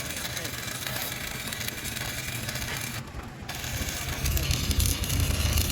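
Electric arc welding on a cracked truck rear axle: a steady crackling hiss that breaks off for about half a second roughly three seconds in, then resumes. A low hum underneath grows louder near the end.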